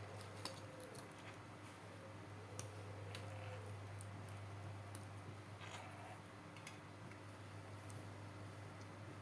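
Scattered faint clicks and taps of small tools handling a wristwatch under repair, over a steady low hum.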